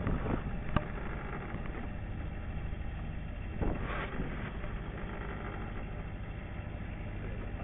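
Fishing cutter's engine running steadily at low revs under a wash of sea and wind noise, with a sharp click about a second in and a brief whoosh about four seconds in.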